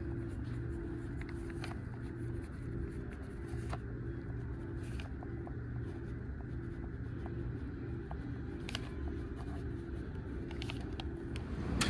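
Ballpoint pen writing on notebook paper, faint scratches and light ticks over a steady low hum.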